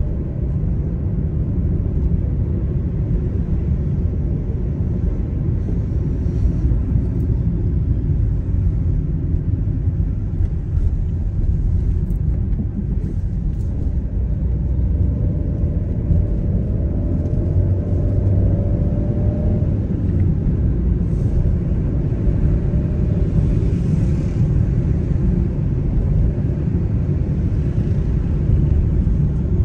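Steady low rumble of a car driving on city streets: road and engine noise heard from inside the cabin. A little past halfway, a faint engine note rises slightly in pitch for a few seconds.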